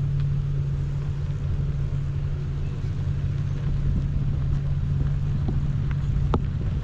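Car engine running, heard from inside the cabin as a steady low hum with rumble beneath it; a faint click comes about six seconds in.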